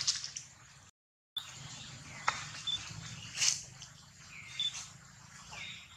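Short high-pitched animal chirps and squeaks among a few sharp clicks, with a quick rising squeak about two seconds in. The sound cuts out completely for a moment about a second in.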